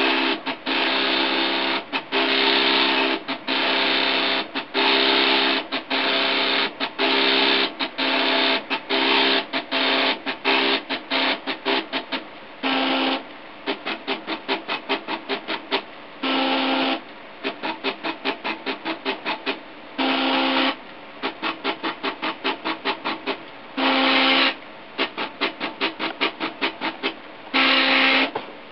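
Homemade 3D printer's stepper motors whining in pitched bursts that start and stop sharply as the print head moves back and forth. In the first half the moves are longer. Later they are short, several a second, with a longer steady tone every four seconds or so.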